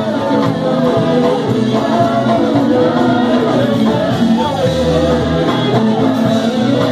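Live gospel worship music: a man singing into a microphone over a church band of keyboard, electric guitar and drums.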